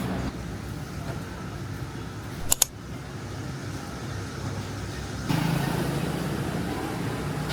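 Low steady rumble of road traffic, with a sharp double click about two and a half seconds in; the rumble gets louder a little after five seconds.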